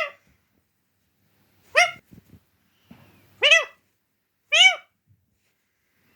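Pet parrot giving three short calls a second or two apart, each rising and then falling in pitch, with a few faint low knocks in between.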